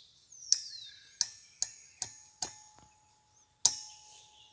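Sharp metal clicks and knocks from a bar being worked on a gas cylinder's valve to open it while charging a hydraulic breaker with gas, about seven strikes in three and a half seconds, the loudest near the end. A faint steady whistle joins about a second in.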